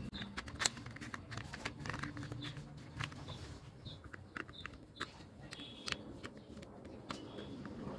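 Light, scattered clicks and taps of hard plastic toy-car parts being handled and fitted together, and a small screwdriver turning a screw into the plastic car body.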